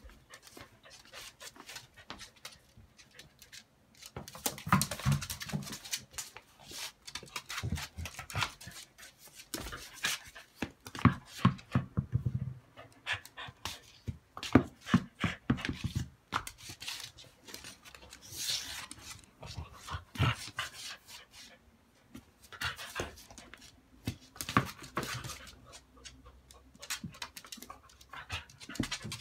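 A corgi panting, with many short clicks and knocks scattered throughout.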